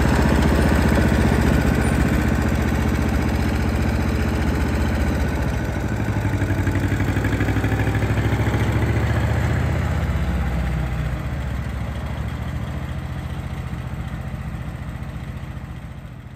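1940 John Deere LA tractor's small two-cylinder engine running with an even, rhythmic firing beat as the tractor is driven slowly, growing fainter over the last few seconds as it moves away.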